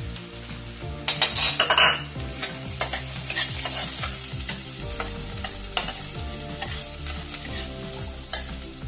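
Chopped onions and green chillies sizzling in hot oil in a metal kadai over a high flame, with a flat metal spatula scraping and clinking against the pan as they are stirred. A louder burst of noise comes about a second in.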